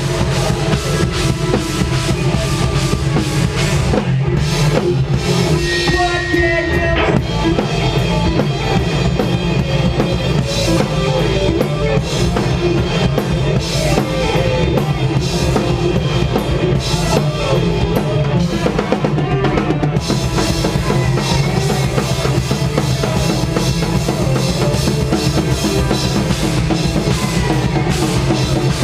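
Post-hardcore band playing live and loud, with a heavy drum kit driving it, bass drum and snare to the fore. The cymbals thin out about four seconds in and come back in full after about twenty seconds.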